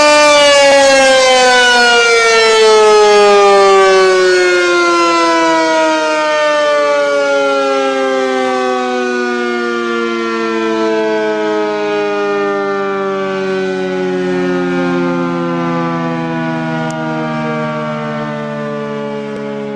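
Siren sounding the signal to break the Ramadan fast (buka puasa), a loud multi-toned wail whose pitch slides slowly and steadily down as it winds down, growing gradually quieter.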